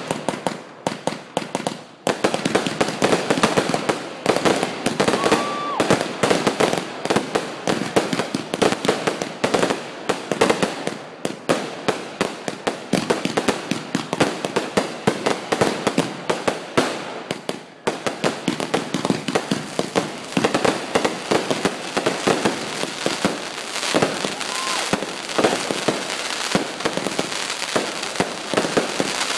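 Fireworks launching and bursting overhead in a rapid, continuous string of sharp pops and bangs. There are brief lulls about two seconds in and again near eighteen seconds.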